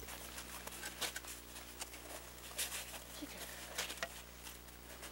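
Faint scattered taps, clicks and crunches of a sediment core tube being handled and of people moving in snow, over a steady low hum.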